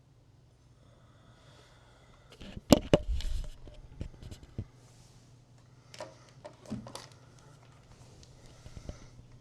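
A sleeper's soft, slow breaths over a faint steady hum, broken by a cluster of sharp clicks and knocks about two and a half seconds in and a few more around six to seven seconds.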